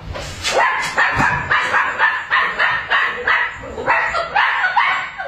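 Puppy yapping in a rapid string of short, high barks, about three a second. The barking is protective, aimed at someone touching its owner.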